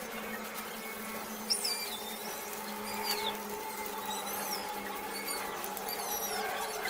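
Small birds chirping: short, high, falling chirps in quick little runs throughout, over a steady low hum.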